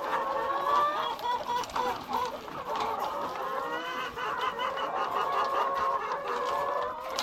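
A flock of laying hens clucking at feeding time, many short calls overlapping one another without a break.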